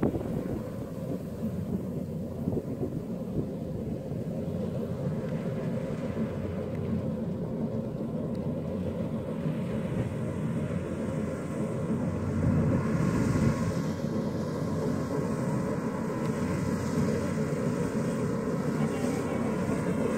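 Kubota combine harvester running as it cuts rice, a steady low engine rumble that gets louder as the machine comes closer. Wind buffets the microphone.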